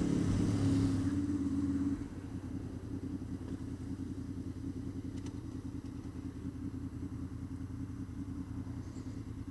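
Honda VFR800's V4 engine running as the bike rides along. About two seconds in it drops to a quieter, quick, even pulse at low revs.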